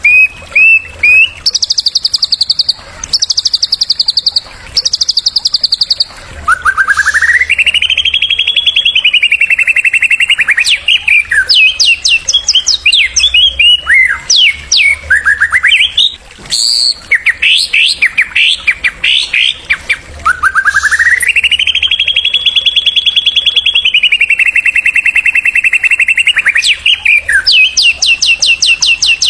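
Songbird song played as a masteran to stimulate a white-rumped shama. It opens with short bursts of very fast, high trilling, then two long rapid trills that rise and hold, with quick choppy notes in between.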